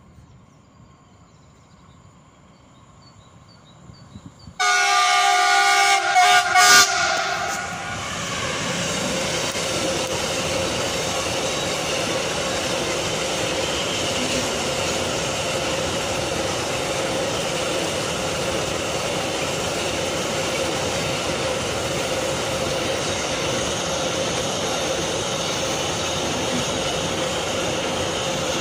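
A freight train's locomotive horn sounds loudly for about three seconds, starting about four and a half seconds in, with a couple of short blasts at its end. Then a long train of covered hopper wagons rolls past with a steady rumble.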